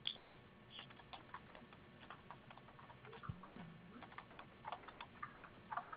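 Faint, irregular light clicks and taps, several a second, with a sharper click at the very start, over a quiet line.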